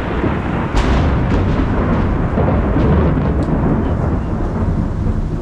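Loud thunder rolling on after a lightning strike, a deep rumble throughout with a sharp crack about a second in. Rain falls underneath.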